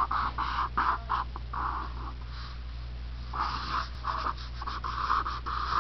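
Felt-tip marker drawing on paper: a quick run of short strokes, a pause of about a second, then longer strokes.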